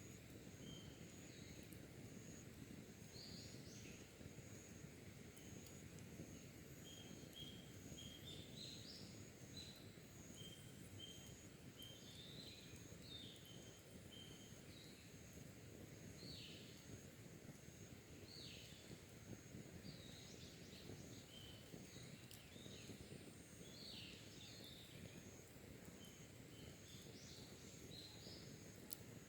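Wild birds chirping and singing faintly, short calls scattered throughout, over a steady high-pitched whine and a low outdoor rumble.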